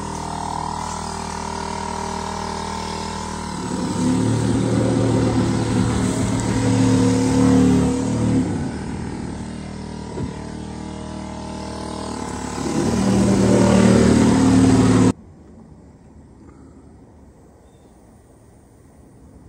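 A motor engine running and changing speed, louder twice, a few seconds in and again near the end, then cut off abruptly about three-quarters of the way through, leaving only faint room sound.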